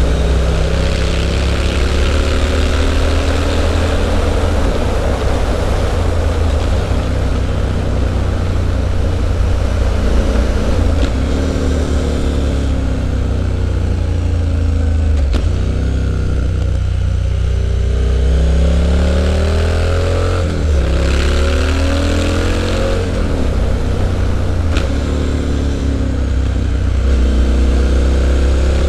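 Triumph Street Scrambler 900's parallel-twin engine through a Zard aftermarket exhaust, under way and revving up through the gears again and again. Several times the pitch climbs and then steps down at a gear change. About halfway through there is a longer stretch of falling revs, with the throttle off into a corner.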